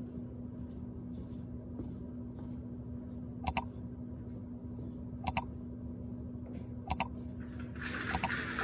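A steady low hum, with three sharp double clicks spaced evenly about a second and a half to two seconds apart, and a rushing noise building near the end.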